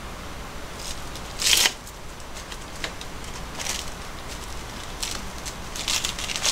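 Crisp sheets of dried nori crackling and rustling in the hands as they are wrapped around rice balls. It comes in a few short bursts, the loudest about a second and a half in.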